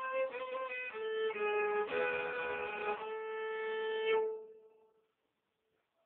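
Solo fiddle: a quick run of short notes, then a fuller double-stopped passage, ending on a long held note. The bow stops about four seconds in and the note rings away to silence.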